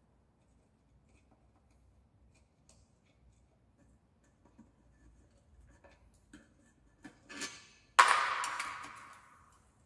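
A few small metallic clicks and a short rattle, then one sharp clang of a metal object about eight seconds in, ringing out and dying away over nearly two seconds.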